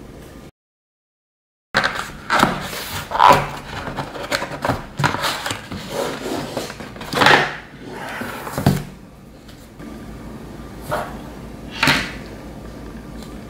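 Cardboard packaging being handled by hand: a shipping box opened and a white inner box slid out and turned over. It is a busy run of rustles, scrapes and light knocks, the loudest about halfway through, then two shorter ones near the end.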